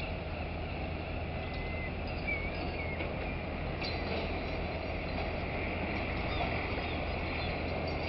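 Dockside crane working as it hoists the empty clamshell grab: a steady low mechanical drone, with a few faint high squeaks over it.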